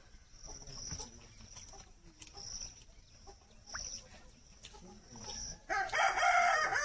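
A rooster crowing loudly near the end, over a faint high chirp that repeats about once a second.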